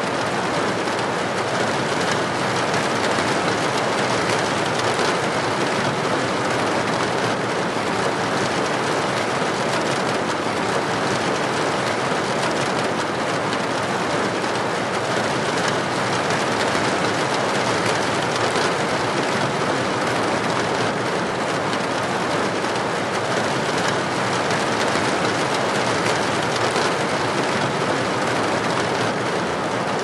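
River rapids of white water rushing, a loud steady noise with no break.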